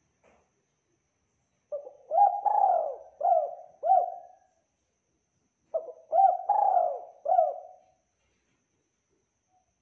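Spotted dove (tekukur) cooing: two phrases of four or five coos each, with a pause of about a second between them.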